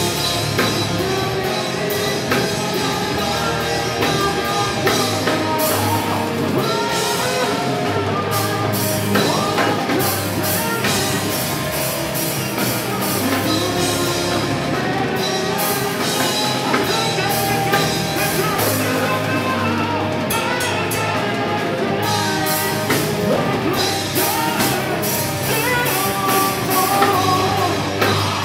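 Live rock band playing loud, with drum kit, electric guitars and a vocalist singing into a microphone.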